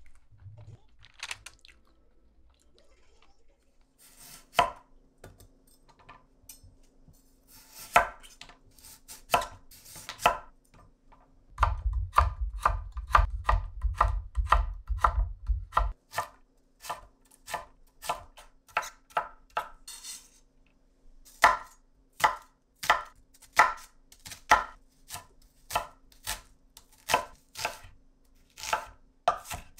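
Kitchen knife chopping food on a cutting board in irregular strokes, with a quick, dense run of cuts and board thuds around the middle.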